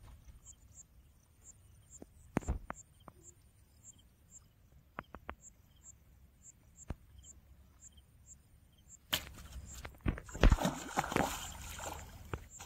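Water splashing and churning as a hooked fish thrashes at the surface, starting suddenly about nine seconds in after a quiet stretch broken only by a few faint ticks.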